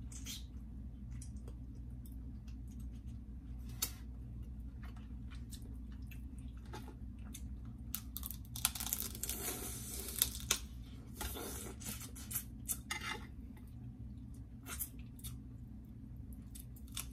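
Blue crab shells being cracked and torn apart by hand, with wet squishing from the sauce-coated shell and chewing. The loudest cracking and tearing comes in a dense stretch about halfway through, and a low steady hum runs underneath.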